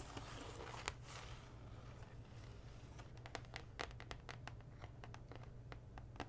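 Soft crinkling of packaging for about the first second and a half, then a run of light, irregular taps on slime containers, ASMR-style.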